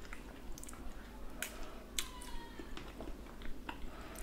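Quiet eating sounds of smoked mackerel being nibbled by hand: scattered soft mouth clicks and smacks, with a faint short falling squeak about halfway through.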